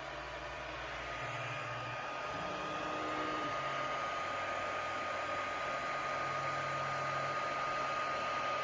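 3D printer running a print: its cooling fans whir steadily with a thin high whine, while the stepper motors hum in short low tones that change pitch every second or so as the head moves.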